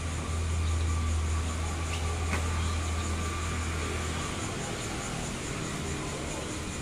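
Low steady rumble of a nearby vehicle engine in street traffic, dropping away about four seconds in, with one faint click midway.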